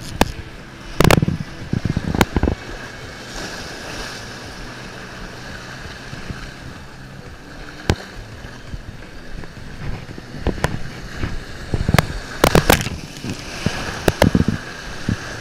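Small waves washing and breaking against the rock blocks of a sea jetty, with wind on the microphone. Scattered sharp knocks and thumps, clustered about a second in and again around twelve to thirteen seconds in.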